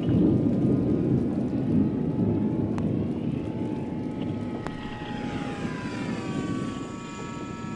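Electric RC scale model airplane's motor and propeller whining in flight, the pitch sliding down in the second half as it passes by, over a steady low rushing noise.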